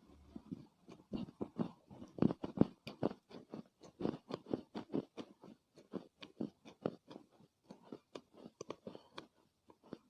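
Pieces of Chinese loess, a dry yellow clay earth, being bitten and chewed: a steady run of soft, irregular crunches, several a second.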